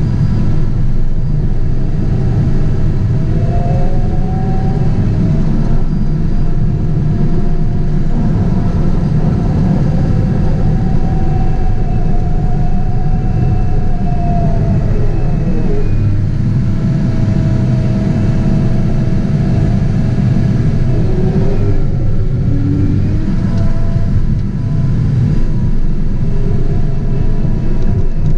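Caterpillar 973C track loader's diesel engine working under load, heard from inside the cab as a loud, steady rumble. Over it runs a whine that rises and falls in pitch, dropping away about halfway through.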